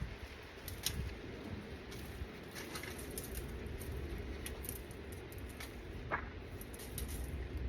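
Low steady rumble with a scattered handful of light clicks and taps.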